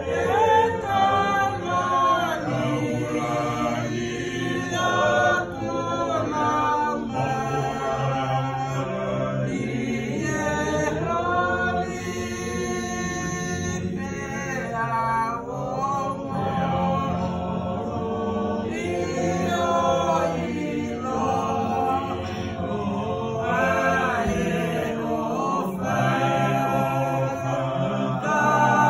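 A church choir singing a hymn, many voices together.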